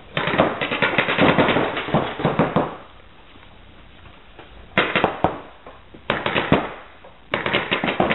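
Paintball markers firing reball rubber balls in rapid strings of shots: one long volley of about two and a half seconds, a lull of about two seconds, then three short bursts.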